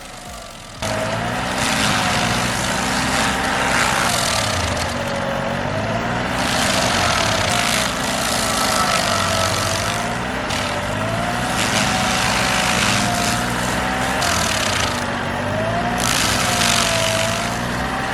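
Stump grinder engine running under load as its cutter wheel chews into a hard sugar maple stump. The engine note sags and recovers over and over as the wheel is swept through the wood, with a steady rush of grinding and flying chips. It starts suddenly about a second in.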